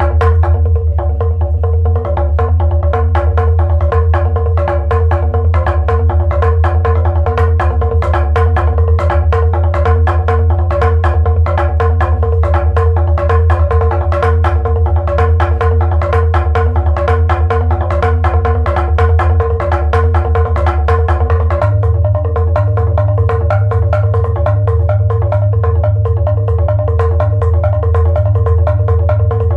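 Live percussion music: rapid, even mallet strokes on pitched percussion, repeating a short figure over a steady low drone. The drone shifts to a new pitch about two-thirds of the way through.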